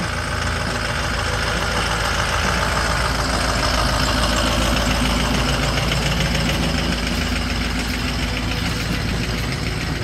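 Ford cutaway truck's diesel engine idling steadily.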